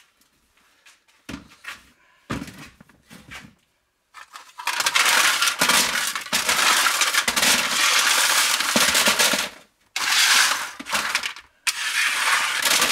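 Crushed aluminium drink cans clattering and crinkling against each other as they are scooped up by the handful. There are two knocks in the first few seconds, then a long run of loud clatter with brief pauses.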